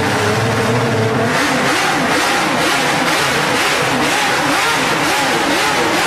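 Motorcycle engine running at a steady pitch, then from about a second in revved up and down over and over.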